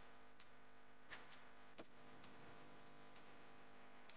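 Faint, light taps of a claw hammer striking a nail into a wooden board, about seven irregularly spaced ticks, over a steady low hum.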